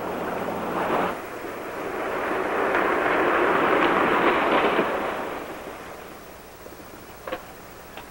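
A convertible car drives up and pulls to a stop: a rushing engine and tyre noise that swells and then fades, followed by two short clicks.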